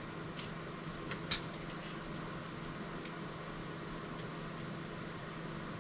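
Steady fan-like hum in a small enclosed space, with a few faint light clicks, the clearest about a second in.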